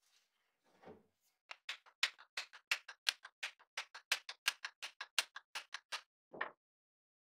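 A hammer tapping rapidly on the end of a new wooden hammer handle, about five light taps a second for some four seconds, then one last tap. The handle is held upright with the head at the bottom, so the taps drive the handle further into the head to seat it.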